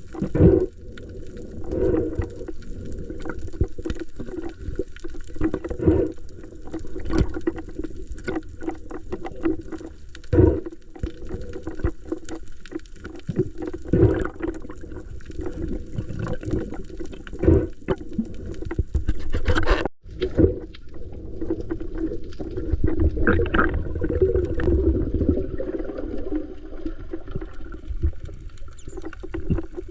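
Water sloshing and gurgling close to the microphone, with a louder surge every couple of seconds and a brief dropout about two-thirds of the way through.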